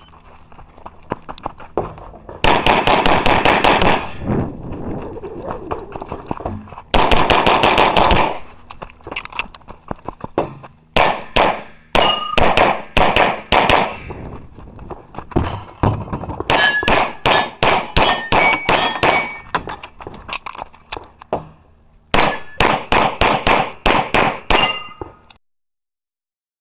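Rapid strings of semi-automatic pistol shots, several a second, fired in five bursts with short pauses between. Many hits are followed by the ring of steel targets being struck. The firing stops abruptly near the end.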